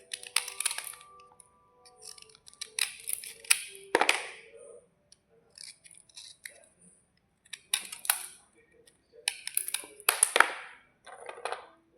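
Slate bars being crunched, close to the microphone: about six short crunchy bursts with pauses between them.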